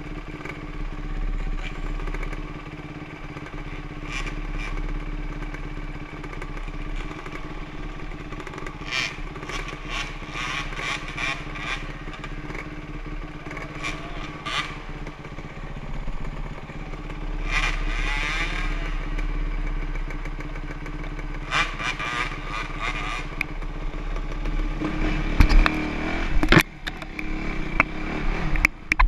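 Dirt bike engine running at a fairly steady speed, with bursts of clattering and clicking along the way. A few loud knocks come near the end.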